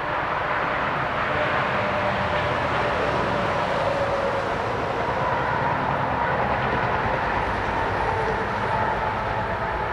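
Steady, even rumbling noise with a few faint held tones, like a distant machine or vehicle.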